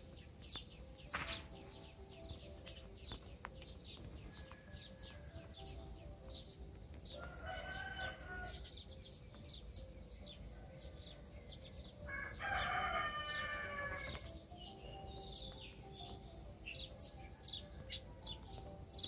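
Rooster crowing twice, about seven seconds in and louder again about twelve seconds in, over the steady high chirping of small birds, two or three short chirps a second.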